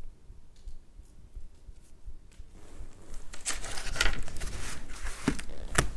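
Rustling and handling of a leather stocking on brown craft paper, starting about two and a half seconds in after a quiet stretch, with several sharp clicks and knocks near the end.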